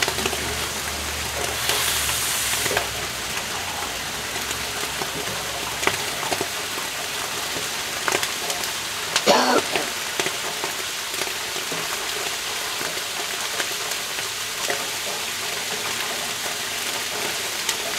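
Water boiling off on top of hot Galden in a vapor phase soldering tank: a steady sizzling sputter with scattered pops. The water layer is running thin, and the pops are bubbles collapsing as they meet the cooler water.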